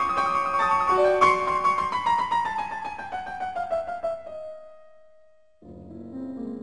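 Piano music: a run of notes stepping downward and slowing, ending on a held note that fades out; a new, quieter passage in a lower register begins near the end.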